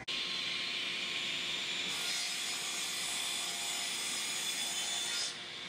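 Steady rushing hiss of a miter saw and its dust-collection airflow during a cut, brighter from about two seconds in and dropping away just before the end.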